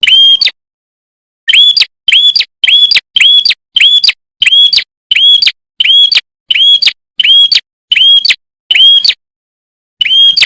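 A small songbird, the prenjak kepala merah (red-headed prenjak), calling in a fast, loud series of short, sharp, identical chip notes, about two to three a second, pausing briefly about half a second in and again near the end.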